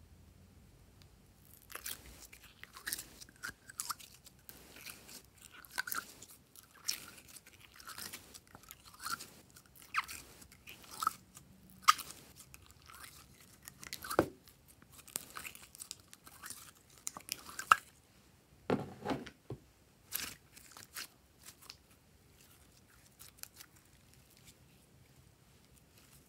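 Glossy slime being pressed and squeezed by hand out of the cells of a plastic tray: a run of sticky, crackling clicks, about one a second, that dies away a few seconds before the end.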